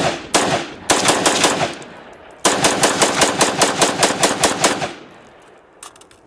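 AR-style rifle firing in rapid strings, each shot cracking and echoing: two single shots, a quick burst of about five, then a longer run of about a dozen shots over two and a half seconds. A fainter shot follows near the end.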